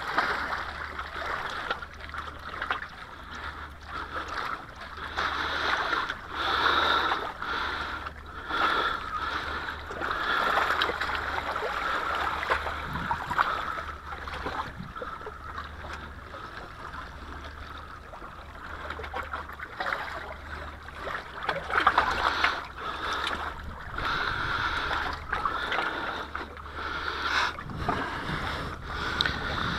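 Small sea waves washing and splashing against shore rocks in uneven surges.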